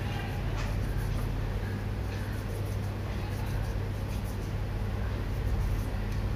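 A steady low hum with faint, irregular soft rustles and taps as soft murukku dough is rolled and pressed by hand in a steel bowl.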